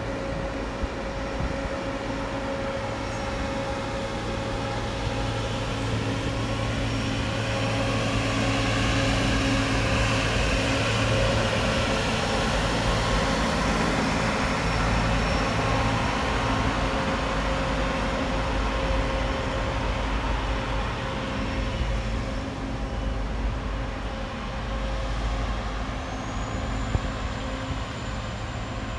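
Diesel-powered railway track maintenance machines running as they pass along the track, a steady engine note with a higher steady tone. The sound grows loudest about a third of the way through and eases off as the machines move away.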